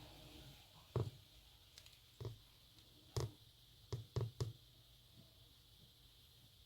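Six soft knocks or taps, irregularly spaced, the last three coming in quick succession.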